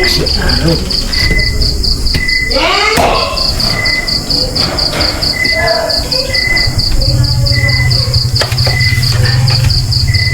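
Insects chirping, likely crickets, in a steady, fast pulsing trill, with a second, shorter call repeating on and off.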